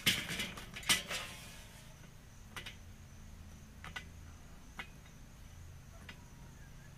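Charcoal briquettes clattering as they are poured from a chimney starter into a Weber kettle grill, a burst of rattling in the first second or so. Then a few single clicks as briquettes are shifted by hand on the grate.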